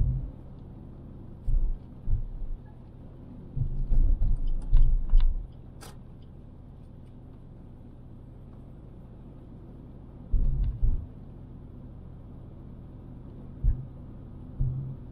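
A car driving, heard from inside: a steady low road rumble broken by irregular loud low thumps and bumps, several of them bunched together about four to five seconds in and again around ten seconds in.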